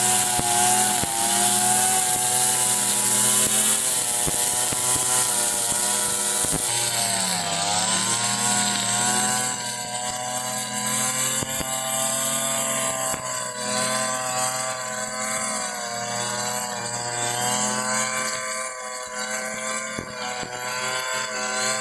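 Backpack petrol brush cutter running at high speed while cutting grass, its engine pitch wavering up and down with the load. About seven seconds in the engine briefly slows and picks up again.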